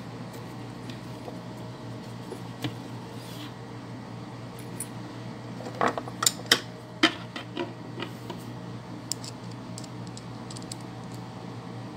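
Small clicks and knocks of a screw, a lamp socket and a screwdriver being handled inside a plastic lampshade, with a cluster of sharp clicks about halfway through. A steady low hum runs underneath.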